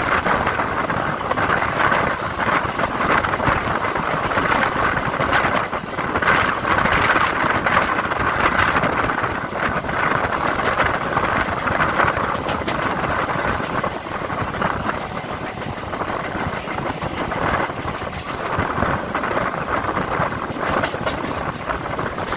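Indian Railways EMU local train running along the track, heard from the side of the moving coach: a steady rush and rattle of wheels on rail, with a few sharp clicks about halfway through.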